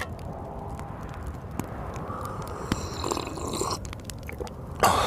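Wood fire crackling in a fireplace, with scattered pops over a steady low blizzard wind, and a louder burst near the end.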